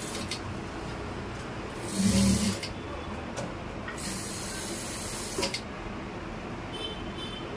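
Industrial single-needle sewing machine stitching in short runs, the loudest about two seconds in.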